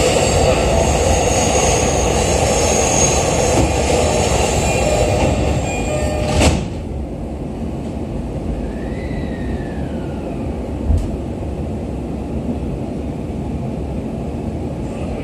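Loud platform noise and a train passing on the next track come in through the open doors of an E531-series car. About six and a half seconds in, the doors shut with a sharp thump and the sound drops. The car then pulls away with a short rising-then-falling motor whine over a steady low rumble.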